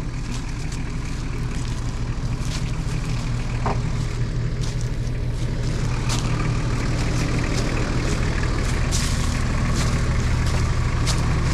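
A diesel 4WD engine running steadily at low revs, growing slowly louder, with a few brief knocks and clatters over it.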